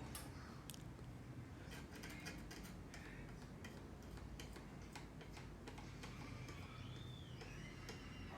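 Faint, scattered light ticks and taps of small repair tools being handled at the bench, over a low steady hum.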